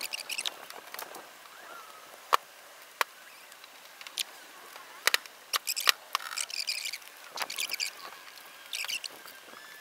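Rubber rear-windscreen seal squeaking in short runs as it is worked into place with tyre levers, with several sharp clicks of the levers against glass and metal, most of them around the middle.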